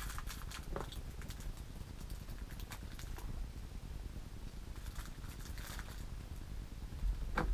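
Eating sounds: chewing and small mouth noises, with scattered crinkles and clicks of a plastic food wrapper being handled, the sharpest crinkle near the end.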